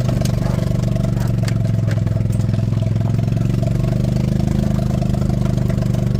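A vehicle engine running steadily at an even pitch, with a few short clicks and rattles over it.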